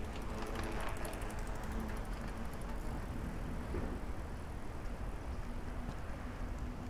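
Town street ambience: a steady low rumble of traffic with a faint engine hum, and a light, fast ticking during the first couple of seconds.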